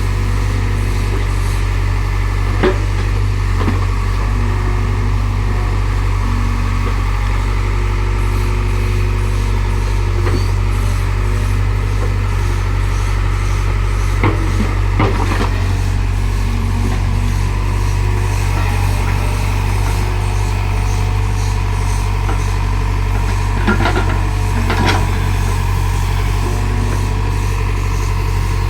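Excavator's diesel engine running steadily, with a few short scattered knocks.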